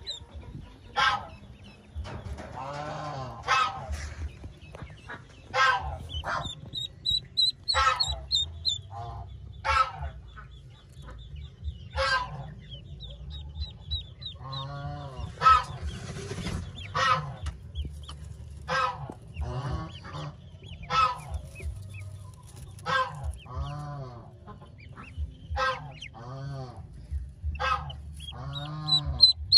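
Ducklings peeping in runs of thin, rapid, high chirps, with short, louder honking calls from adult fowl every second or two.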